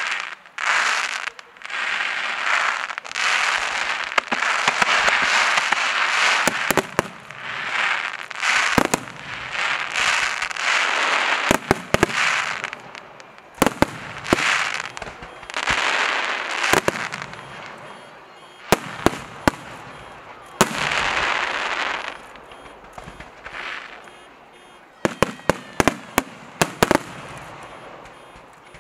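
Aerial fireworks going off: repeated noisy bursts, each a second or two long, with sharp bangs between them and a quick string of bangs near the end.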